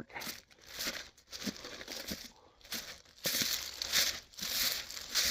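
Footsteps crunching through dry leaves and brush, irregular at first, then steadier and louder from about three seconds in, at about one and a half steps a second.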